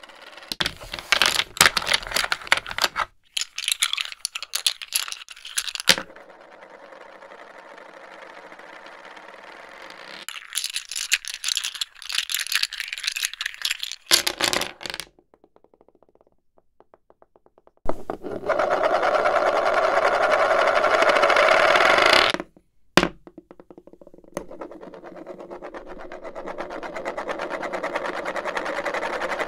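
Backgammon checkers being moved on a board: quick clusters of clicks and knocks as pieces are picked up, set down and tapped together, then a long steady slide across the board surface that stops suddenly, and a softer sliding scrape near the end.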